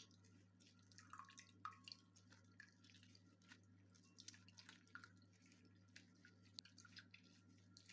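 Near silence: faint, scattered drips and small ticks over a low steady hum.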